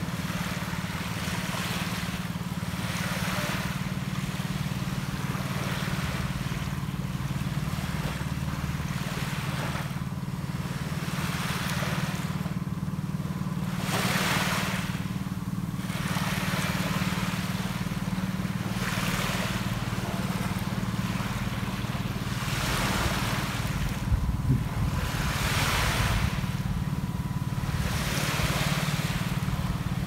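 Small waves washing onto a sandy beach, the hiss of each wash swelling and fading every few seconds, over a steady low hum. A couple of light knocks come about three quarters of the way through.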